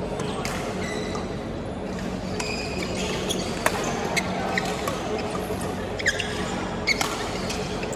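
Badminton rally: sharp racket hits on the shuttlecock, five of them standing out in the second half, and short high squeaks of shoes on the court floor, over a steady hall hum.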